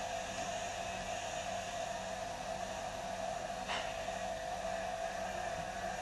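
Steady background hiss with a constant hum, and one faint click about three and a half seconds in.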